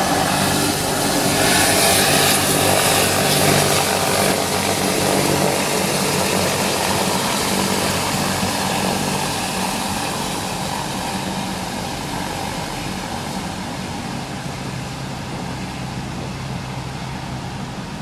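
Steady rushing engine noise, loudest in the first few seconds and slowly fading.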